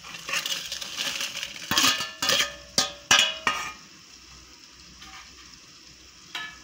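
Slotted steel spoon scraping and clinking against a steel colander and a steel mixer-grinder jar as dried red chillies are tipped in. Several sharp metallic clinks with a brief ring in the first four seconds, and one more clink near the end.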